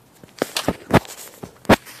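A handful of short, sharp knocks and clicks, unevenly spaced, the loudest near the end.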